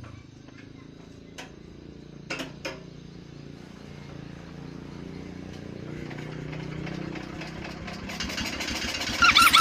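A machine that has long stood unused, running with a low rumble that slowly builds, with a few sharp clicks early on. Near the end a loud, strange squeal sets in, repeating about five times a second.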